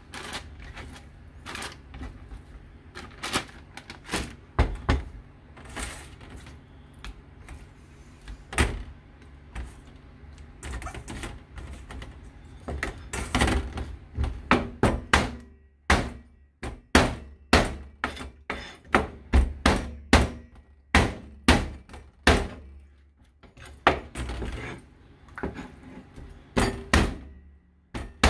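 Kitchen knife chopping on a cutting board: irregular sharp knocks and thuds, sparse at first, then coming faster and louder, at one or two a second, about halfway through.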